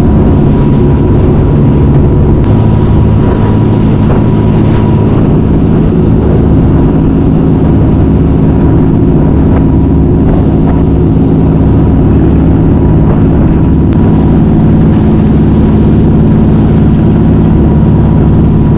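Charter fishing boat's engine running steadily at cruising speed, a loud, even drone with the rush of the wake along the hull.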